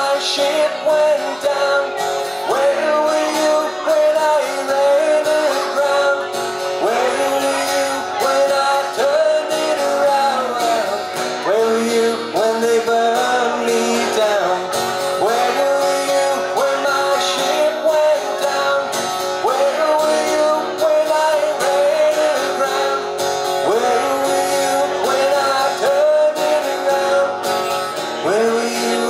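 Acoustic guitar strummed steadily through a PA in a live instrumental passage of a song.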